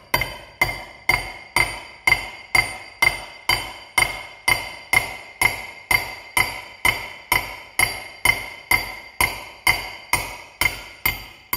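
Steady hammer blows, about two a second, each with a short metallic ring. They are driving a hexagonal fluted screw-extractor drive rod down into the hole drilled through a broken stud, working it through the stud's whole length.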